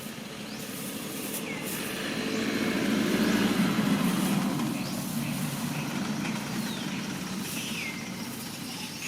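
A motor vehicle passing by: low engine and road noise that swells to a peak about three to four seconds in, then slowly fades. Short chirps sound over it.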